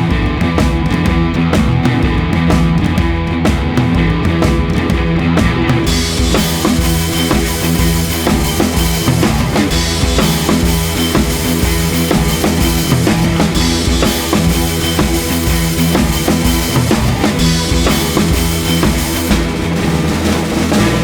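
Background rock music with a drum kit keeping a steady beat. The music gets brighter and fuller about six seconds in.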